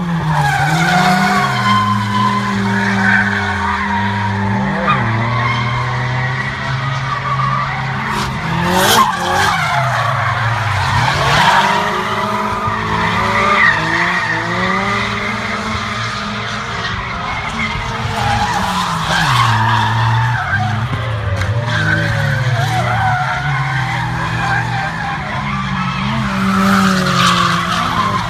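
Drift cars at full throttle: engines revving hard and swinging up and down through the revs while the tyres screech and smoke in long slides. A single sharp crack sounds about nine seconds in.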